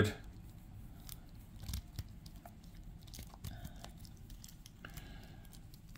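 Faint, scattered clicks and creaks of a plastic action figure's leg and ankle joints being flexed by hand, with a couple of slightly louder clicks about two seconds in.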